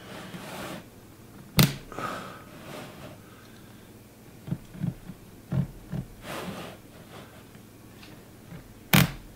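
A knife blade cutting through a clear plastic storage bin: small knocks and scraping as the blade works along, with two sharp clicks, one about a second and a half in and one near the end.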